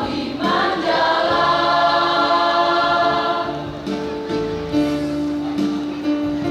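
School choir singing a long held chord with electronic keyboard accompaniment. About four seconds in the voices thin out, leaving steady sustained notes.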